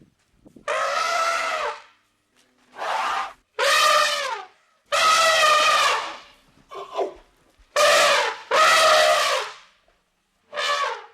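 A large animal giving a series of about eight loud, brassy, honking calls, each half a second to a second long and often dropping in pitch at the end, with short silent gaps between them.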